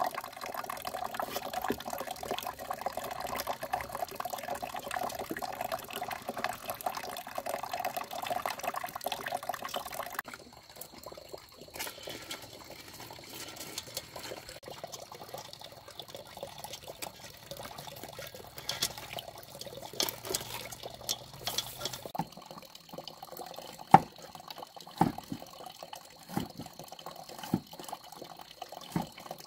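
Running water splashing steadily for about ten seconds, then stopping abruptly; after that, quieter water sounds with scattered sharp knocks and clicks.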